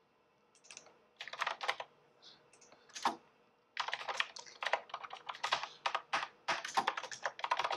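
Typing on a computer keyboard: a few scattered keystrokes over the first three seconds, then a quicker, steady run of keystrokes from about four seconds in.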